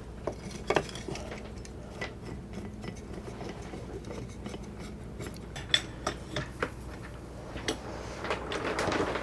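Scattered metallic clinks and clicks from a hydraulic bottle jack and its steel handle being set and worked to lift and level the boat's keel, with a scraping rub near the end.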